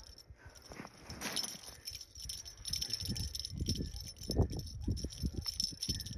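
Wind gusting on the microphone, getting stronger from about halfway in, with light jingling over it.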